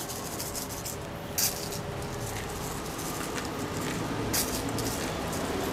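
Chocolate sprinkles being spooned from a plastic jar onto a pancake in a styrofoam box: a light pattering rattle, with a couple of sharp clicks about a second and a half in and again near four and a half seconds.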